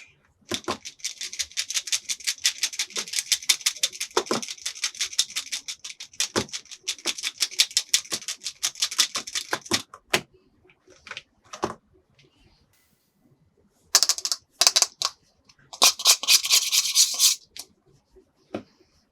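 Small hard plastic toy pieces clicking and rattling as they are handled: a fast, dense run of clicks for about ten seconds, then scattered single clicks and two short rattling bursts near the end.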